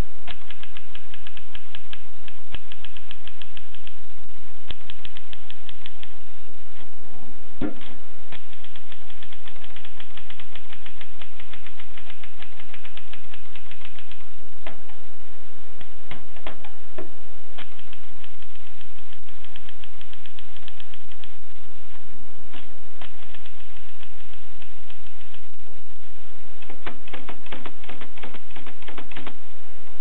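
Tippa portable manual typewriter being typed on: runs of rapid key strikes with short pauses between them, and a single heavier knock about eight seconds in.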